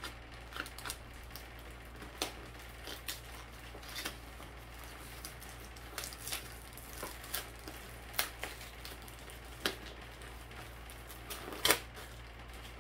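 Wrapping paper around a mailed book crinkling and tearing by hand in irregular crackles, one louder crackle near the end.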